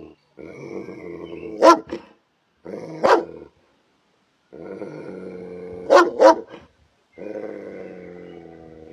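A dog growling in drawn-out stretches, broken by four sharp barks, the last two in quick succession.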